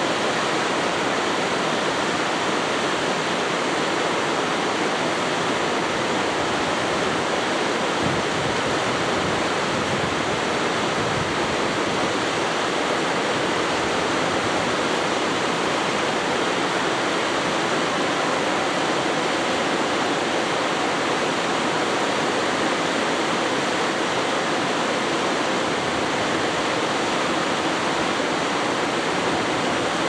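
Waterfall cascading over rock ledges into a plunge pool: a steady, unbroken rush of falling water.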